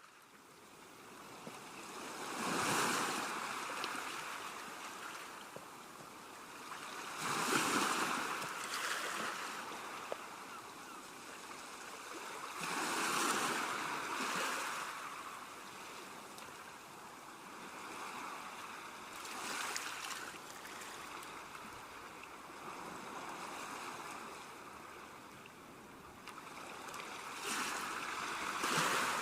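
Waves washing onto the seashore, the wash swelling and fading every five seconds or so.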